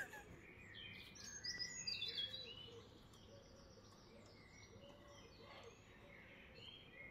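Faint birdsong: short chirps and whistling glides, busiest about one to three seconds in, then fainter calls for the rest.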